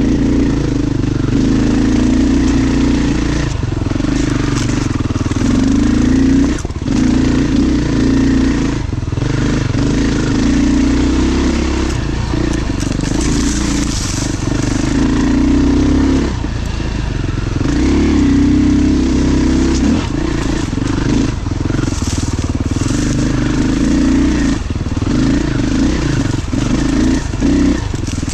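Beta dirt bike engine running under varying throttle on rough singletrack, its note rising and falling with short dips where the throttle closes, with scattered knocks and clatter from the bike on the trail.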